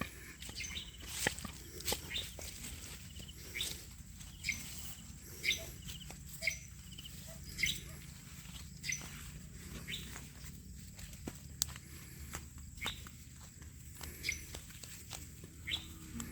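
Footsteps on dry ground and leaves, about one step a second, with faint bird chirps behind them.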